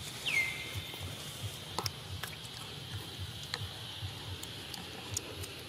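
Outdoor ambience: a steady high hiss, with one short whistle falling in pitch just after the start and a few faint sharp clicks.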